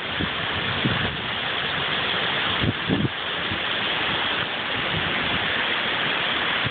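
Heavy storm rain pouring down as a steady hiss, with a few short gusts of wind buffeting the microphone, one about three seconds in.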